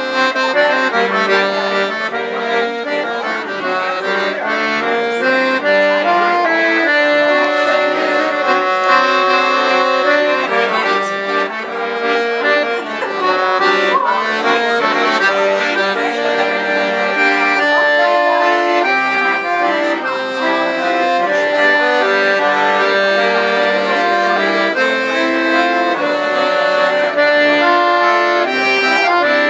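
Background music: a traditional folk tune played on accordion.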